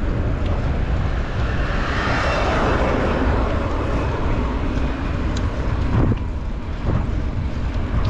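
Wind rumbling on the microphone of a moving bicycle, with a broad rushing noise from a passing vehicle that swells about two seconds in and fades out a few seconds later. Two short knocks near the end.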